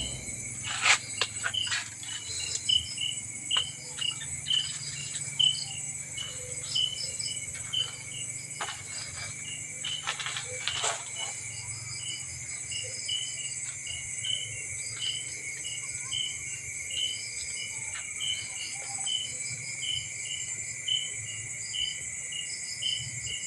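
Insects such as crickets chirping: a steady high trill with a shorter chirp repeating about twice a second. A few sharp clicks or knocks cut through, the loudest about a second in and again around eleven seconds in.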